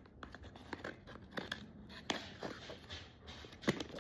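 Plastic packaging of a squishy toy being handled and opened: scattered short crinkles and clicks.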